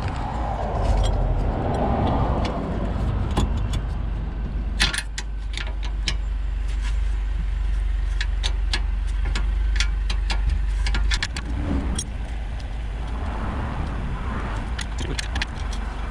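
Open-end wrenches clinking and clicking against a brake caliper's guide bolt and nut as the top bolt is worked loose. There is a scattering of sharp metallic clicks over a steady low rumble.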